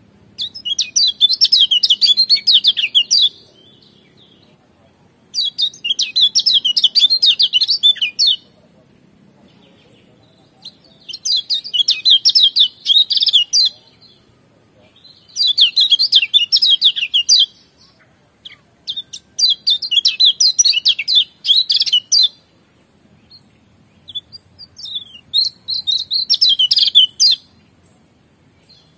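Kecial kuning (Lombok white-eye) singing in six bouts of rapid, varied twittering, each lasting two to three seconds, with short pauses between.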